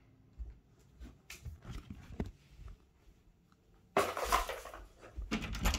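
Scattered light knocks and footsteps of a child getting up and moving about a small room, then sudden loud rubbing handling noise about four seconds in as the camera is picked up and moved.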